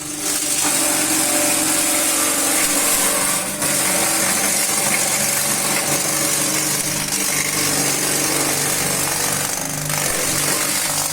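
Mini forage chopper machine running steadily, with a steady motor hum under a loud whirring, rattling noise.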